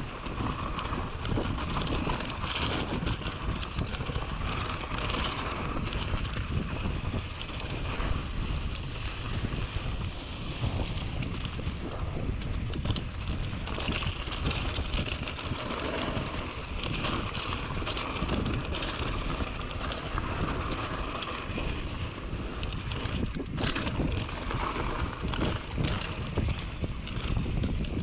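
Polygon Siskiu D5 mountain bike descending a dirt trail: tyre noise and constant rattling and knocking over bumps, with wind rushing over the action camera's microphone.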